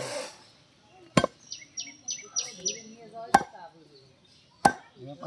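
Meat cleaver chopping mutton on a wooden log chopping block: three sharp single chops, spaced a second or more apart. Between the first and second chop, a bird gives a quick run of five high chirps.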